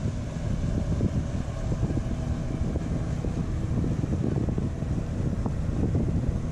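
Wind buffeting the microphone in a steady low rumble, with the engine of a motorboat speeding past faintly humming underneath.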